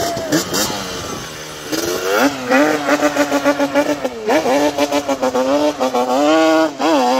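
Yamaha Banshee 350's twin-cylinder two-stroke engine revving hard as the quad is ridden through mud. The revs sweep up three times and are held high between, with choppy on-off throttle in the middle.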